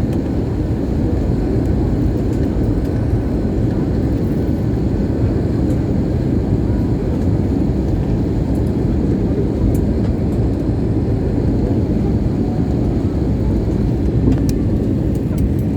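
Steady, loud, low rushing noise of an airliner in flight, heard from inside the passenger cabin: engine and airflow noise, unchanging.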